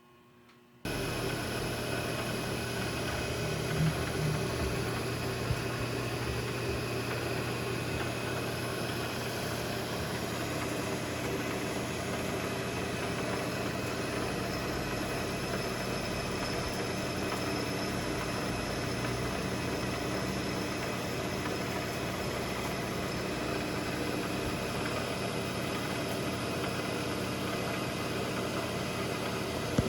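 Milling machine running steadily while it cuts the seat where the ball rides in a small cast vise nut, starting abruptly about a second in, with a couple of light knocks soon after.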